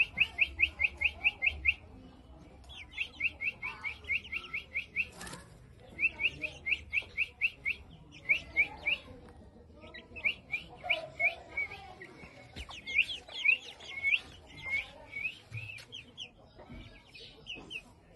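Young Rampuri chickens peeping in quick runs of short, high peeps, about nine a second, in bouts a second or two long with short pauses between.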